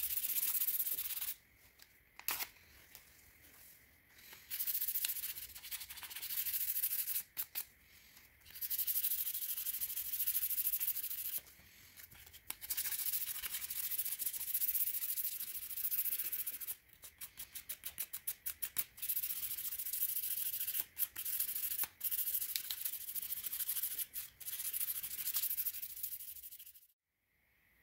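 Sandpaper rubbed by hand along a stabilized red cedar knife handle, as the handle is hand-sanded toward 400 grit. It makes a steady back-and-forth rasp that stops briefly a few times, with a stretch of short, fast strokes past the middle.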